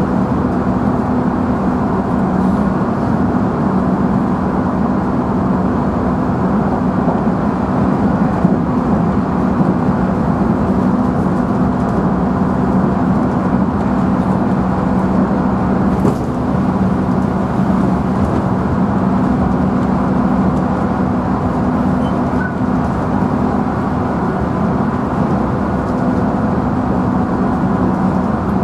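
Running noise inside the motor car of a JR Central 311-series electric train at a steady speed: a steady drone of the drive and wheels on the rails, with a constant hum.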